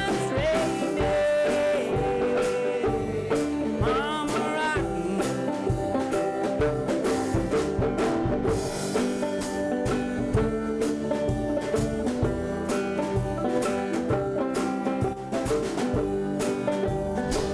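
A banjo and two ukuleles playing together in an upbeat folk tune, the banjo picked over the ukuleles' steady strumming.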